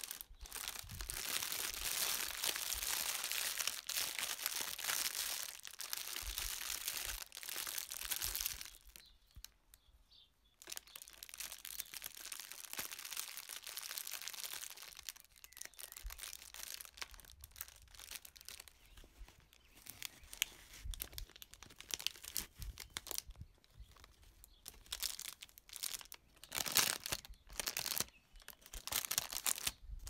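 Clear cellophane wrap crinkling and rustling as hands gather it and tie it up. It is loud and dense for the first nine seconds, pauses briefly, then turns to softer, intermittent crinkling with a louder burst near the end.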